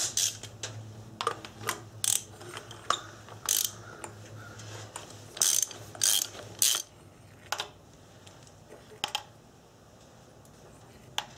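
Hand socket ratchet clicking in short bursts as the coil-pack hold-down bolts on a Honda four-cylinder engine are loosened. The bursts come fast over the first seven seconds, then thin out to a few single clicks.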